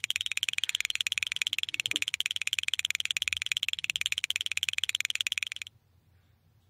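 A fast, evenly pulsing high-pitched trill like a cricket chirr, laid over as a sound effect; it cuts off suddenly near the end.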